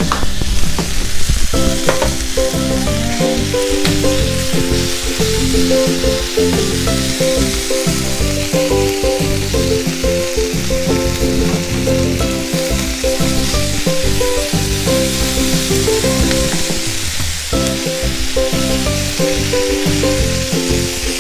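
Tofu sisig sizzling with a steady hiss as it is spooned from the wok onto a smoking-hot cast-iron sizzling plate.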